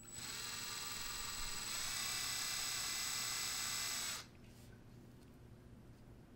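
Electric drill running with a bit boring into the cut end of a plumeria branch: a steady whine that gets louder a little under two seconds in, then stops about four seconds in, leaving faint room tone.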